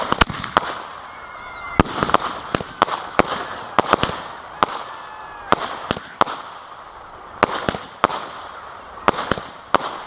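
Fireworks going off in a rapid, irregular barrage of sharp bangs, about two or three a second, some landing close together in pairs, over a continuous hiss of noise between them.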